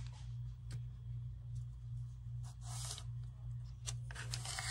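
Faint rustling and light taps as gloved hands lift a coaster and its sublimation paper off a pancake griddle, with a soft rustle about halfway through and another near the end, over a steady low hum.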